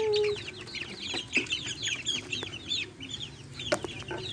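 A group of young chicks peeping without pause: many short, high, falling peeps overlapping one another. A couple of light knocks come through, one about a second and a half in and one near the end.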